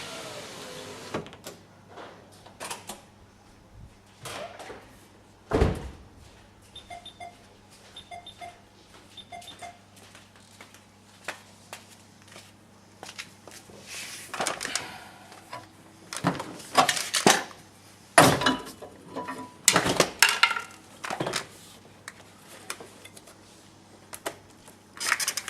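Mitsubishi Verada rear door trim panel being worked off the door: scattered plastic clicks and knocks, with several loud knocks and clip pops in the second half as the liner comes free. The power window motor lowering the glass cuts off about a second in.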